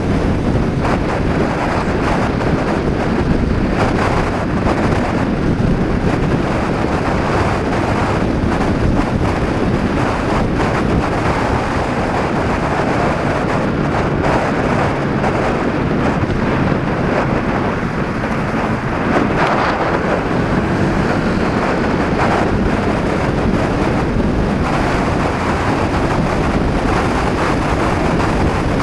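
Heavy, constant wind noise buffeting the action camera's microphone at road speed, over the steady running of a Honda PCX 125 scooter's single-cylinder four-stroke engine.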